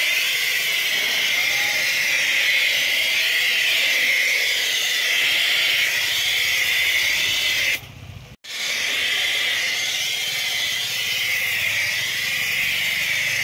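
High-pressure water jet from a pressure-washer spray gun hissing steadily as it blasts a car's tyre and alloy wheel. It stops briefly about eight seconds in, then starts again.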